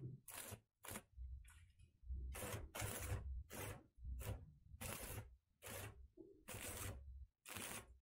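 Stick (arc) welder crackling in a quick series of short bursts, about a dozen, as tack welds are struck joining steel wire mesh to a cage frame.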